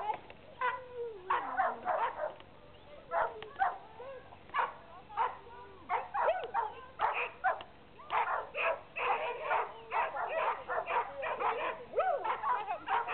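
A small dog yapping in short, high-pitched yips, scattered at first and then coming thick and fast in the second half.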